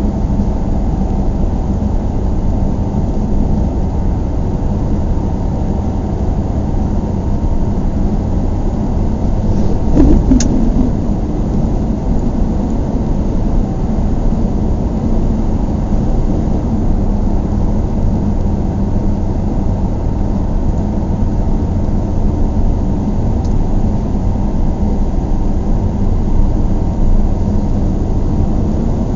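Cabin noise of a closed car at highway speed: a steady low rumble of road and engine noise. A single thump comes about ten seconds in.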